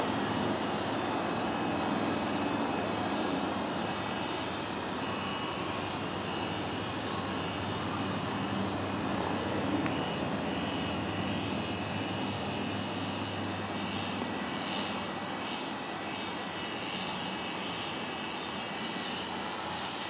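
Oster A-5 electric animal clippers running with a steady motor hum while being worked through a Brittany spaniel's coat.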